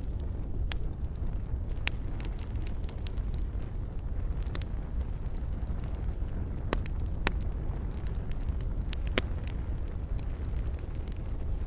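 Wood fire crackling: a steady low rumble of burning with scattered sharp pops and snaps, a few of them louder.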